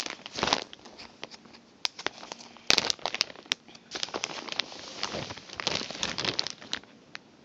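Clear plastic packaging bag crinkling and crackling as it is handled, in irregular clusters of crackles and clicks, the loudest a little over a third of the way in.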